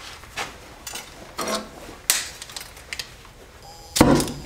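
Oxy-acetylene welding torch lighting: a few light clicks and knocks, then about four seconds in a sudden loud whoosh as the acetylene catches, which carries on as the rush of the burning flame.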